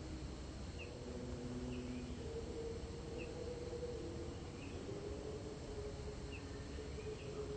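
Outdoor ambience in undergrowth: short, high chirps recur about every second or so over a low, steady hum and rumble.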